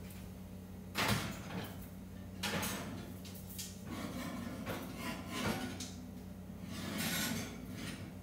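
Metal oven rack and oven door clunking and scraping as a cake pan is set in the oven and shifted side to side to sit flush on the rack. A sharp knock about a second in, then several lighter knocks and scrapes, with a longer sliding sound near the end.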